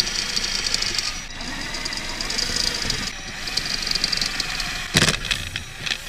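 Cordless drill boring through an aluminium pedal cover. It runs in long bursts with two brief pauses, the bit grinding through hard metal, then a few sharp knocks near the end.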